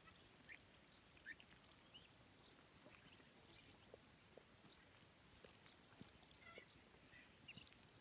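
Faint, scattered short peeps from a flock of ducklings and young ducks feeding, with a few small clicks as they dabble at a puddle.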